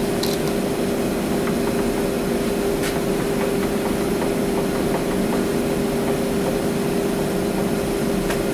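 A steady machine hum with one strong unchanging tone, running at an even level, with a few light clicks.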